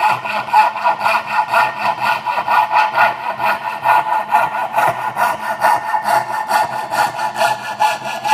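Coping saw cutting a curve in a thin wooden board, its fine steel blade worked back and forth in quick, even strokes, about four a second, while it is slowly turned along the curve.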